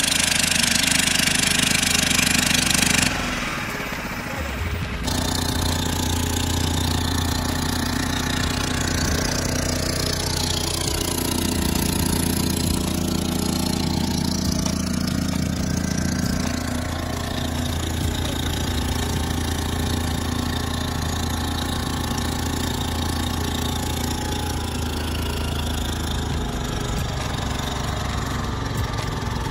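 A motorboat's engine running steadily under way, with wind rushing on the microphone over the first three seconds. The engine note drops a little about ten seconds in.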